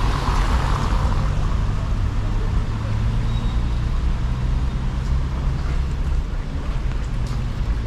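Motor-vehicle traffic on a rainy street: a steady low engine rumble, with a passing vehicle swelling and fading in the first second or two. A few light clicks come near the end.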